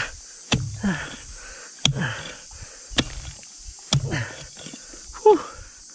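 A metal digging tool striking hard, dry ground four times, about once a second, each blow followed by a grunt of effort from the digger, with a louder grunt near the end.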